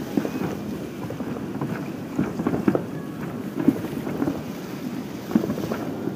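Distant fireworks display: irregular muffled booms and pops carried across the water, with wind buffeting the microphone.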